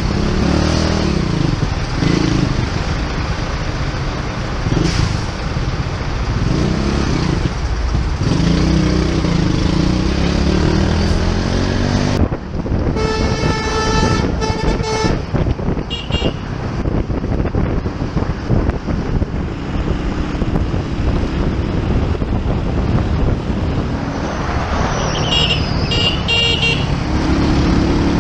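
Motorbike running on the road, with steady engine and road noise whose pitch rises and falls early on. About halfway through, a vehicle horn beeps in a quick series of short blasts. Shorter, higher horn beeps follow soon after and again near the end.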